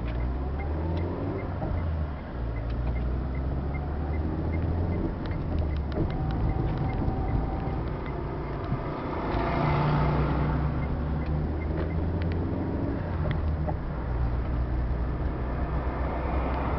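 Engine and road noise heard from inside a moving vehicle: a low drone whose pitch steps up and down as the vehicle speeds up and slows, with a swell of road noise about halfway through.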